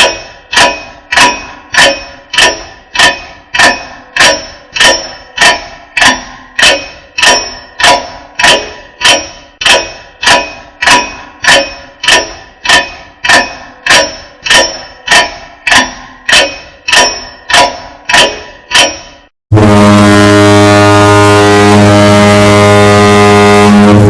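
A ringing metallic clang struck over and over, about one and a half times a second, each strike dying away before the next. After about nineteen seconds it stops, and a loud, steady, horn-like tone follows.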